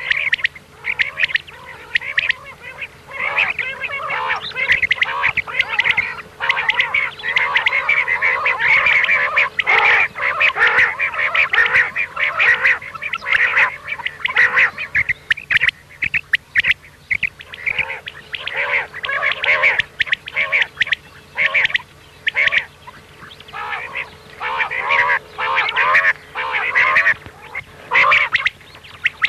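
Recording of many common quail calling at once: a dense chorus of short, quick, repeated calls overlapping one another, with a faint steady hum underneath.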